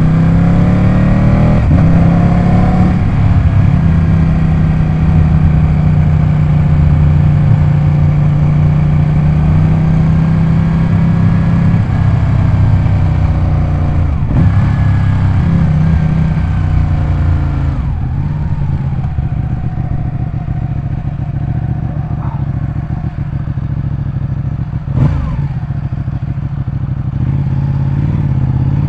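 Ducati 899 Panigale's Superquadro L-twin engine running: its pitch rises over the first few seconds and holds high. It then drops about halfway through and settles lower. There is a sharp click near the end.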